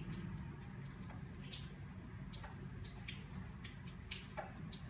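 Faint scratchy ticks of a crochet hook pulling yarn through stitches while single crochet stitches are worked, over a low steady hum.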